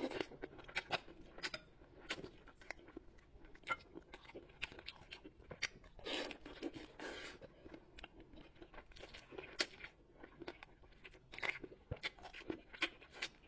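Close-miked eating of soy-braised bullfrog: a steady run of short mouth clicks and smacks as the meat is bitten and chewed, with a longer, louder stretch about six seconds in as a piece is bitten off the chopsticks.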